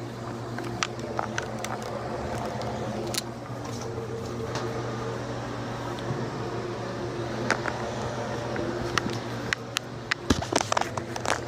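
NuTone air vent fan running with a steady hum, with scattered sharp clicks and ticks and a quick cluster of them near the end.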